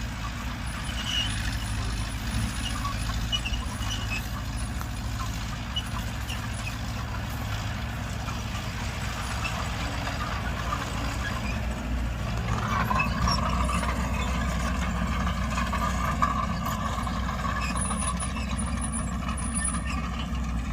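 Earthmoving machinery at work, a bulldozer and dump truck: a steady low engine drone, joined about twelve seconds in by a higher steady whine with overtones.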